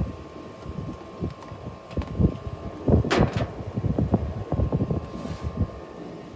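Knocks and clatter from pork chops being pulled off a barbecue grill. The knocks are low and irregular, with one sharper clack about three seconds in.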